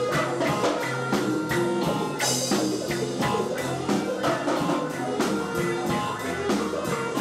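Live band playing reggae/ska on electric guitar, bass, keyboard and drum kit, over a steady drum beat. A cymbal crash comes about two seconds in.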